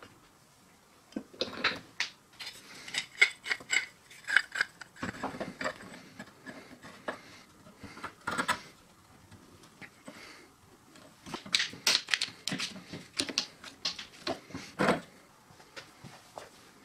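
Rapid runs of sharp metallic clicks and clattering knocks as a knife blade is clamped in a small bench vice and a bar clamp is fitted and tightened around it. The sound comes in two long spells, the second ending with a louder knock near the end.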